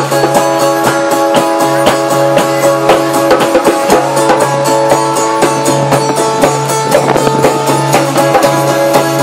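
Instrumental break of a band song: guitars playing over bass and a drum beat, with no singing.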